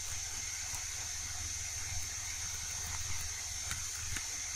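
Steady background hiss and low electrical hum from the recording setup, with a few faint computer-keyboard key clicks.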